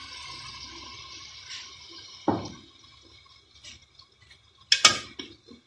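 Mutton stock sizzling and simmering in a hot pot of browned mutton, the hiss dying away over the first couple of seconds. A dull thump comes about two seconds in, and a few sharp clicks near the end.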